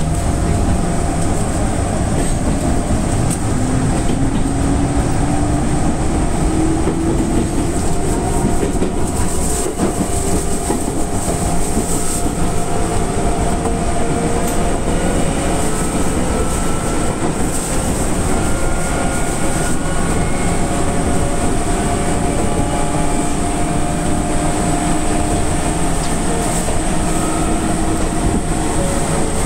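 Enshu Railway 1000-series four-car electric train running: steady wheel-on-rail rumble with a traction motor whine that rises in pitch as the train picks up speed, then runs steadier.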